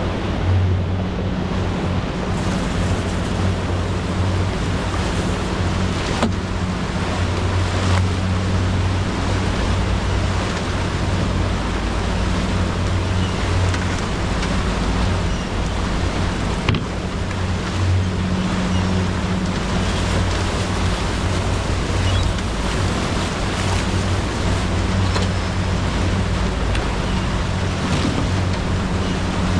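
A large outboard motor running steadily at cruising speed with a constant low hum, over the rush of the boat's churning wake and wind. A single sharp knock sounds a little past halfway.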